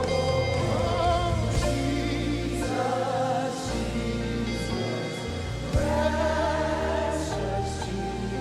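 Slow live gospel worship: voices holding and sliding through sung notes over sustained bass and keyboard chords. A single short knock sounds about six seconds in.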